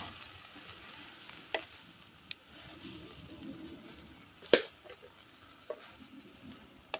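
Wooden spatula stirring leafy greens as they sizzle in an earthenware pot, with a few sharp knocks of the spatula against the clay pot, the loudest about four and a half seconds in.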